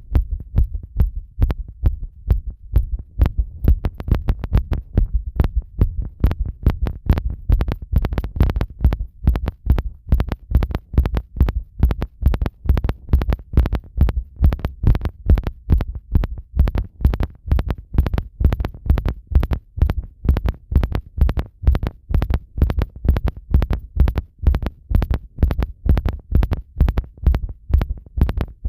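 A person's heartbeat heard at the chest after a bath, with pressure applied. It is a quick, even run of low thumps over a low hum.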